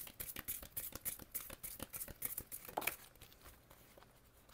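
A deck of oracle cards being shuffled by hand, a fast run of light papery clicks and riffles that stops about three and a half seconds in.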